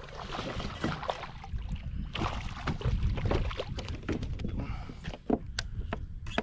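Hooked redfish splashing and thrashing at the water's surface as it is pulled up by the line, then a few sharp knocks about five seconds in as it lands and flops on the kayak's plastic deck.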